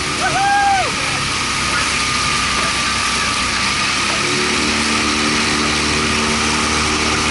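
Small outboard motor running steadily under a hiss of wind and water as the boat moves along; the motor's note comes through more clearly about four seconds in. A brief high call sounds about half a second in.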